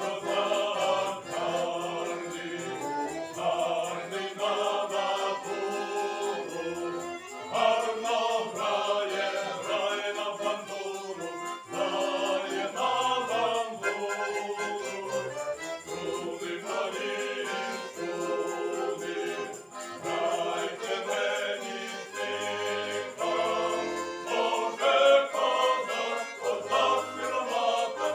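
Mixed folk choir singing a Ukrainian Cossack song, accompanied by bayan (button accordion).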